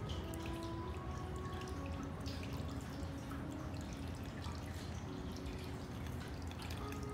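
Water trickling and dripping steadily from a small tiered ceramic tabletop fountain.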